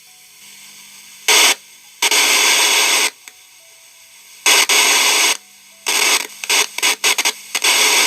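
Loud static hiss from a home theater speaker, cutting in and out about five times, briefly at first and in choppy stutters near the end, as the faulty channel's amplifier input is bridged to the good channel's with a jumper. A faint steady hum sits underneath.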